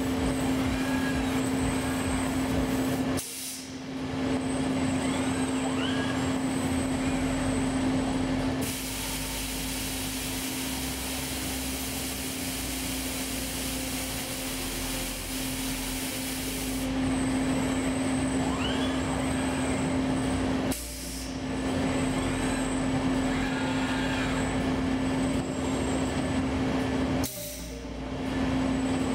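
Steady machine hum and whir from a robotic CNC machining cell, with a few faint rising whines. For about eight seconds in the middle, a strong, even hiss of compressed air blows chips off the stock material.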